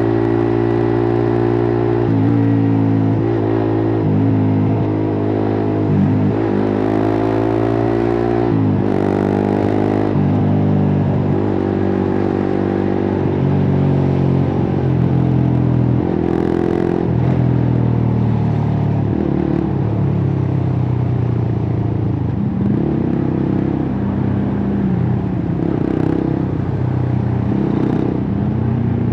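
Suzuki GSX-R150's single-cylinder four-stroke engine through a cut-open exhaust, ridden on the road: several times early on it revs up and drops back, as in upshifting through the gears, then runs on with the pitch rising and falling.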